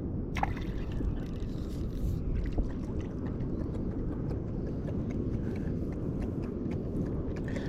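Steady low rumble of ocean surf and wind at the shore, with a few faint ticks.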